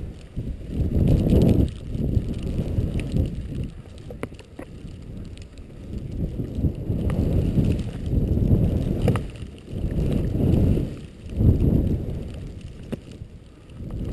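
Wind rushing over the microphone of a skier's camera during a fast run through powder, surging and easing every second or two, over the faint hiss of skis in snow.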